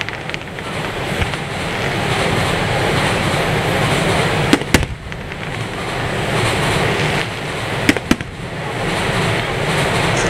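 Aerial firework shells bursting over a steady rushing background noise. A pair of sharp bangs comes about halfway through and another pair a few seconds later.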